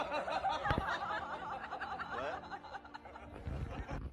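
A person laughing in quick, repeated short notes that fade out in the second half. A single thump comes just under a second in.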